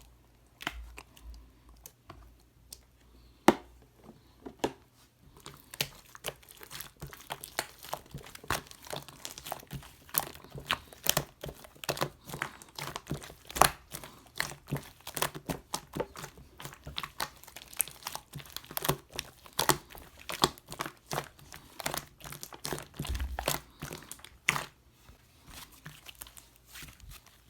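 Crunchy slime being squeezed and worked by hand, giving a run of small crackles and pops. The crackles are sparse for the first few seconds, come rapidly from about five seconds in, and thin out near the end.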